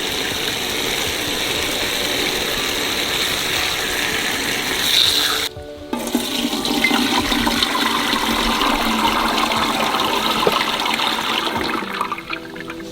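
Water running in a steady rush. It breaks off briefly about five and a half seconds in, then resumes and eases off near the end.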